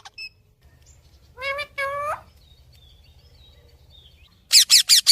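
Australian parrots calling: two rising calls about a second and a half in, then a quick run of five harsh, falling squawks near the end.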